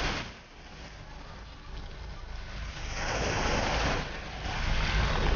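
Small sea waves breaking and washing up a dark shingle beach, the surge easing after the first moment and building again about three seconds in, over a steady low rumble.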